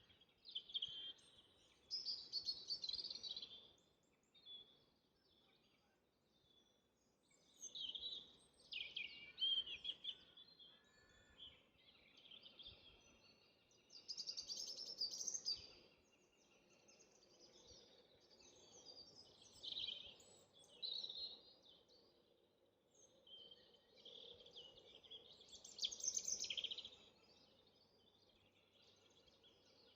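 Songbird singing in short, quick chirping phrases, each a second or two long, repeated every few seconds.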